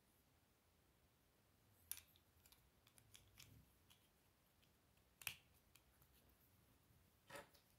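Plastic Lego bricks clicking and snapping together as pieces are fitted and pressed on by hand: three sharp clicks, about two, five and seven seconds in, the middle one loudest, with softer ticks and taps between.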